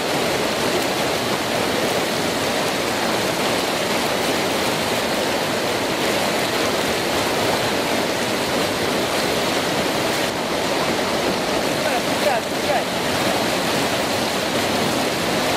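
River rapids: whitewater rushing steadily over and around rocks.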